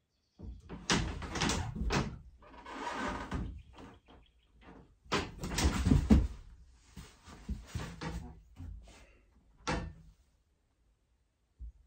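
Thumps, knocks and scuffs of a climber's hands and climbing shoes on the holds and wooden panel of a tilted Grasshopper home bouldering board, with a few louder knocks among them.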